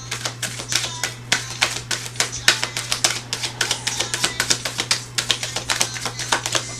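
A deck of tarot cards being hand-shuffled: a quick, uneven run of sharp card snaps and taps, about five a second, over a steady low electrical hum.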